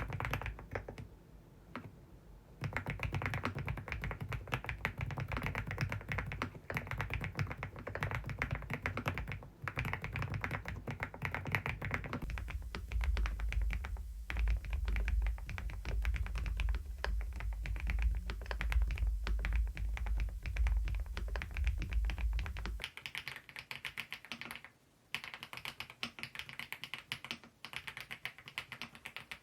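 Rapid typing on a Preflow F1 PRO MAX full-size mechanical keyboard: a dense run of key clicks that changes character several times, as if cut between typing takes. A low rumble runs underneath for about ten seconds in the middle, and the typing stops briefly near the end.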